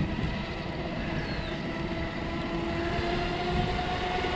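Oxidean Marine Animal 2 RC boat's motor running on the water, a steady whine held at an even pitch.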